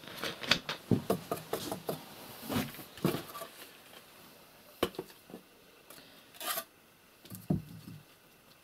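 Scraping, rubbing and light knocks of hand masonry work as mortar is packed into an opening in a brick stove wall to close it. The sounds are busiest in the first few seconds and then grow sparse, with a louder scrape about six and a half seconds in and a dull knock a second later.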